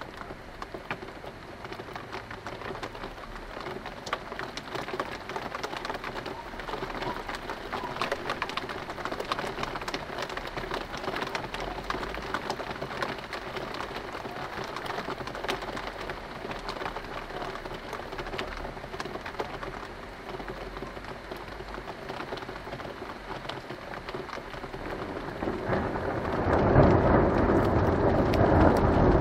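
Thunderstorm: steady rain falling and pattering on surfaces, with faint low thunder rumbling now and then. Near the end the storm grows much louder.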